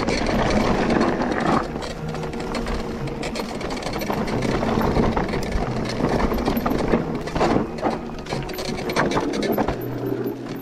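Electric mountain bike riding down a rocky trail: tyres rolling over stones and the bike rattling, with frequent sharp knocks from hits and a steady mechanical hum underneath.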